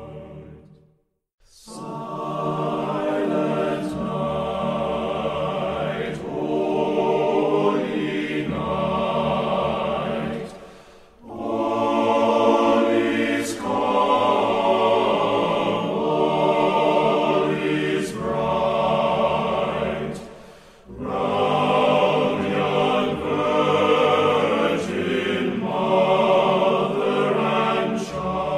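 A choir singing a Christmas song in long, held phrases. It starts after about a second of silence and pauses briefly twice, at about 11 and 21 seconds.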